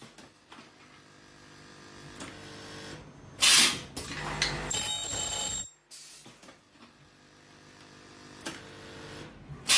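Carbon granule filling and ultrasonic welding machine cycling. Noise builds up gradually, then there is a loud short burst and a high steady tone that cuts off suddenly. The cycle repeats, with the next burst coming about six seconds later, near the end.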